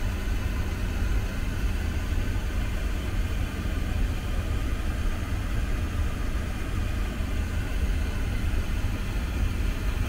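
Boeing 777-300ER cabin noise in flight: a steady low rumble with an even airflow hiss above it.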